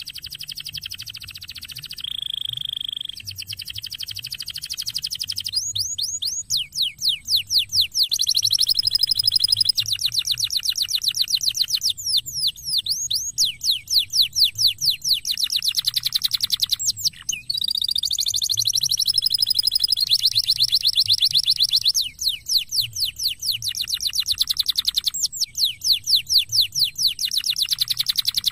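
Domestic canary singing a long, fast song of rolling trills: runs of rapidly repeated notes, many sliding down in pitch, switching to a new trill every second or two with brief breaks between.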